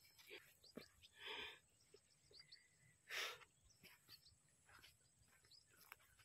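Near silence outdoors: scattered faint bird chirps, with two brief soft hissing rustles, one about a second in and a louder one about three seconds in.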